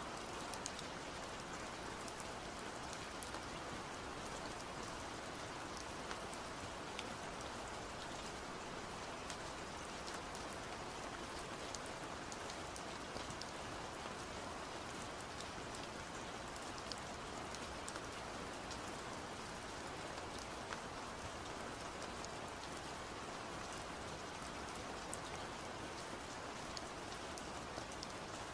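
A steady, even rain-like hiss with scattered faint ticks, unchanged throughout.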